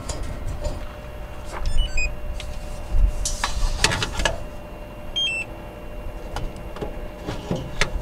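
Hands handling the propane tank valve and fittings, with scattered knocks and clicks as a gas leak detector probe is held to the brass cap on the propane line. Two short electronic chirps sound, about two and five seconds in.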